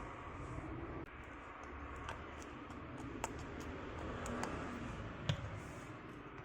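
Faint scattered clicks and light taps of small parts being handled as an electric impact wrench is oiled and reassembled, the sharpest click a little past five seconds in.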